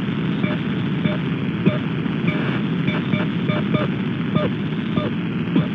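Shortwave radio static on 6228 kHz with an unidentified signal: a strange, syncopated beat of short pitched blips about twice a second over steady hiss. The listener wonders whether it is a pirate station.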